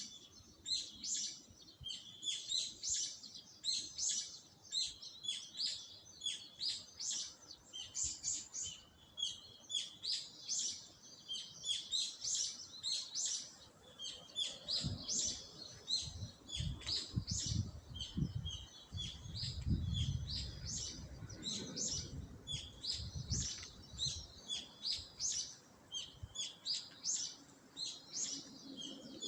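Small songbirds chirping in a dense, continuous chorus of short, high calls. A low rumble runs underneath from about halfway to two-thirds through.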